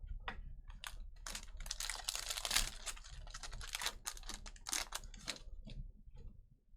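Trading cards and foil packs being handled at a table: a quick run of clicks and rustles as cards are flipped through, thickest about a second or two in, then thinning out.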